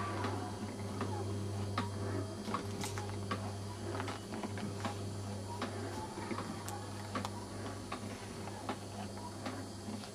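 Steady low electrical hum of the small motors in a motorised model nativity scene, such as the one turning its windmill. Irregular light ticks and clicks run through it.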